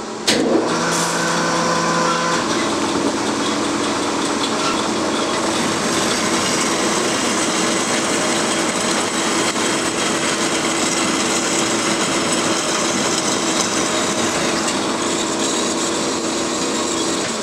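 Kysor Johnson HA-250 horizontal bandsaw cutting a 1¼-inch 304 stainless steel bar, with a steady mechanical noise and a steady tone under it. It starts suddenly just after the opening.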